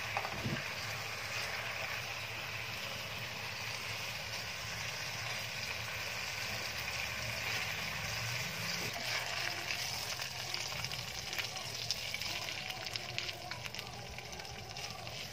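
Pork belly frying in a pan: a steady sizzle and bubble as the braising liquid cooks down, turning to sharper crackling in the later part as the pork fries in its own rendered fat.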